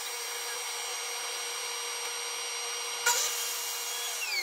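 Table saw running with a steady motor whine. There is a sharp knock about three seconds in, and near the end the whine falls in pitch as the saw is switched off and spins down.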